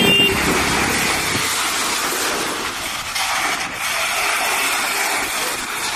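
Strong gusty wind blowing as a steady rushing noise, with low wind buffeting on the microphone for the first second and a half.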